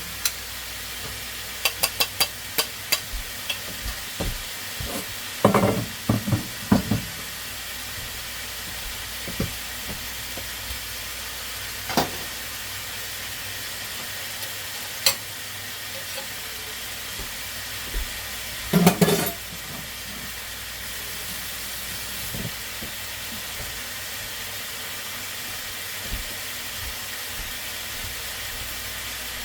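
Marinated chicken sizzling steadily in a frying pan, with utensil clicks and knocks against the pan now and then, most heavily a few seconds in and again about two-thirds of the way through.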